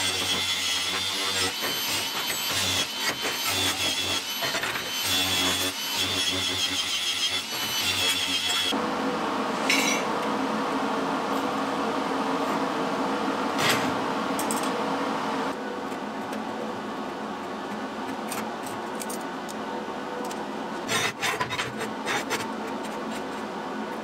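Makita angle grinder with a flap disc running against a steel plate, its whine wavering as it is pressed and eased, then cutting off suddenly about nine seconds in. After that come quieter scratching sounds on the steel as the plate is marked out with hand tools, with a few short sharp scrapes.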